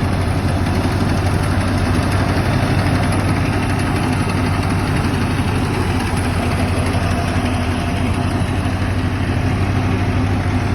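John Deere tractor engine idling steadily with a deep, even hum.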